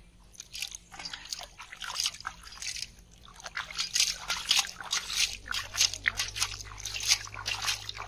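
A carp thrashing in a shallow metal pot of water, making a quick, irregular run of sharp splashes and slaps.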